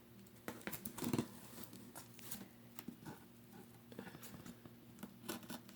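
Scissors working at the packing tape on a cardboard box: faint scattered clicks, scrapes and rustles.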